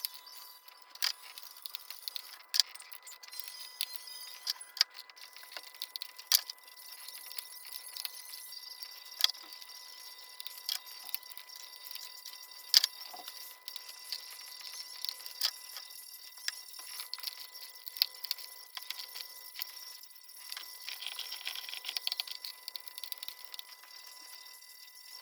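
Irregular metallic clicks and clinks of hand tools and small parts being handled during engine work, some louder knocks among them, over a faint steady high tone.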